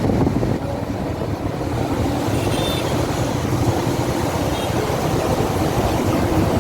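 Steady road traffic rumble from passing vehicles, with a few faint short high tones around the middle.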